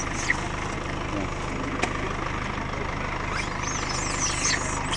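Steady low hum of an idling engine, with a run of short high-pitched chirping calls from about three seconds in.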